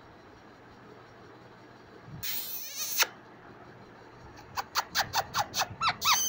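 Green parakeet giving one short harsh screech a little over two seconds in, then, from the last two seconds on, a fast run of short squeaky chirps, about five a second, getting louder.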